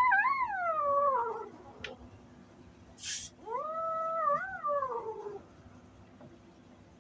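A cat gives two long, drawn-out yowls. Each rises, wavers and then falls in pitch, a few seconds apart. Between them, about three seconds in, there is a short hiss.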